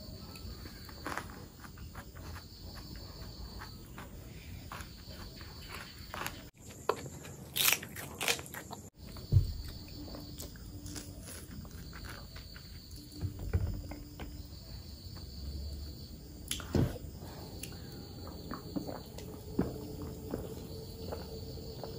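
Close-miked mouth sounds of eating curry and rice by hand: chewing, lip smacks and fingers being sucked clean, with scattered sharp wet clicks. A faint high-pitched tone comes and goes in the background.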